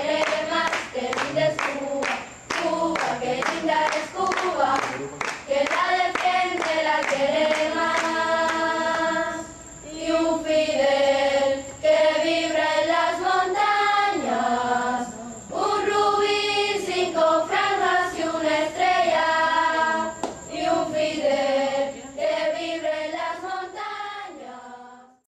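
A choir singing, with sharp rhythmic beats under the first several seconds, then long held sung notes; the music fades out near the end.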